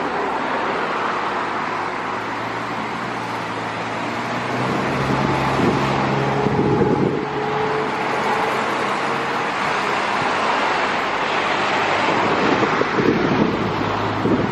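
A steady engine roar with a few held low tones, swelling slightly about a third of the way in, mixed with wind buffeting the microphone.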